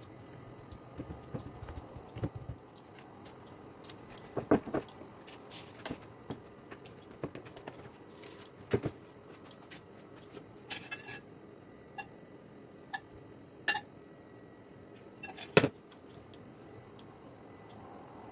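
Kitchen handling noises: scattered light knocks, clicks and brief scrapes as dough, a bowl and a metal baking tray are handled on a countertop. The sharpest knocks fall about a quarter of the way in, near the middle and about three seconds before the end.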